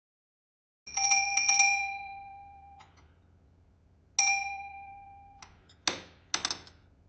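Café door bell jingling as the door opens: a quick cluster of strikes about a second in, ringing out and then stopped short, then a single strike about four seconds in that rings and is stopped the same way. A few short knocks come near the end.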